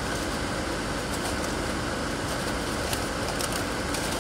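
A car's air conditioning blowing steadily over the idling engine, heard from inside the cabin, with a few faint crinkles of a paper fry bag.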